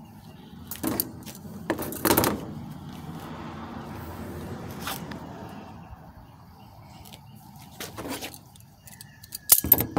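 Handling noises of a Kohler CV15S carburetor and a pair of locking pliers being moved and picked up off a concrete floor: a few scattered knocks and scrapes, with the loudest clatter near the end, over a faint low steady hum.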